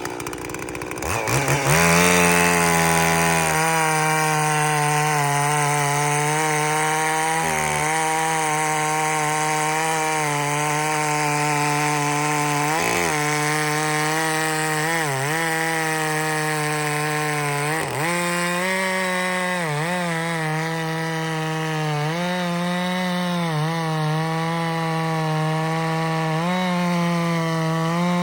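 Stihl 046 two-stroke chainsaw with a dual-port muffler and a 28-inch full-skip chain, revving up about two seconds in and then running at full throttle through white oak. Its pitch dips briefly now and again as it loads in the cut.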